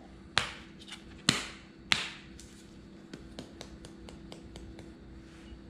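Plastic seasoning shaker: three sharp clicks as its cap is worked open, then a run of faint quick ticks as seasoning is shaken out over diced raw fish.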